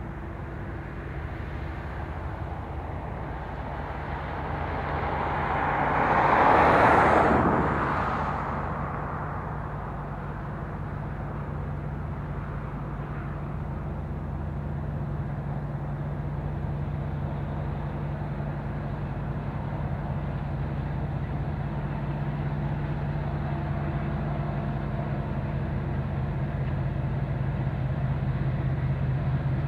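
Diesel locomotive engines running with a steady low drone that grows gradually louder. A broad rush of noise swells and fades about seven seconds in.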